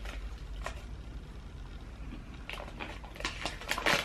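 A toffee and whole-nut chocolate bar being bitten, chewed and handled close to the microphone: a few faint clicks at first, then a quick run of sharp, crackly clicks from about two and a half seconds in.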